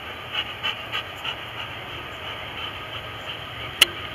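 Jet engines of a Boeing 787 running as it rolls down the runway, a steady rushing noise with a few faint ticks. A single sharp click comes near the end.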